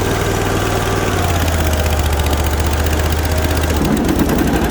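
The 27 hp Kohler Command Pro V-twin engine of a Snapper Z Rider zero-turn mower runs at part throttle and its pitch drops about a second in as it is idled down. Near the end the sound turns rougher as the mower deck's blades are engaged, which this mower only allows at reduced engine speed.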